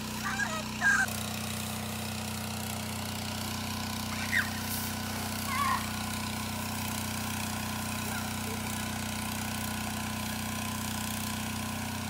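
Engine running steadily to drive the water pump on a tank truck, feeding a hose that sprays a strong jet of water. A few brief high voices call out in the first second and again around four and six seconds in.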